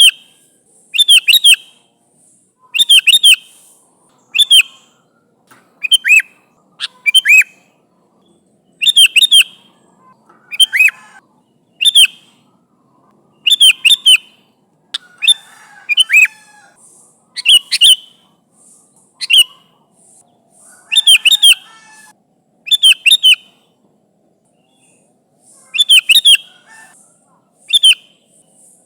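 Sooty-headed bulbul (kutilang) calling loudly. It gives short, bright phrases of two or three quick notes, repeated every second or two, with a few brief pauses.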